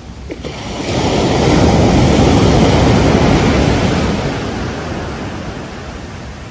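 Ocean wave breaking on the beach: a loud rush of surf that swells about a second in, holds for a couple of seconds, then fades away.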